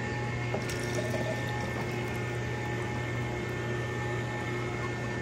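Electric juicer running steadily with a constant motor hum while juicing watermelon, juice running out.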